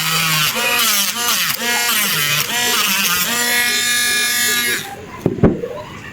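A singing voice with bending and held notes, which cuts off abruptly about five seconds in; then a few sharp clicks and knocks, one of them loud.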